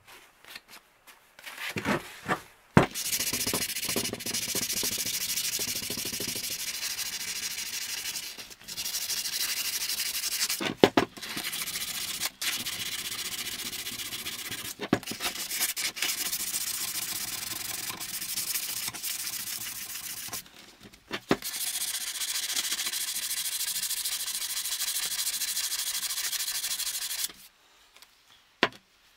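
Hand sanding with 180-grit sandpaper, sped up to double speed: long runs of fast, hissing rubbing broken by a few short pauses and sharp knocks.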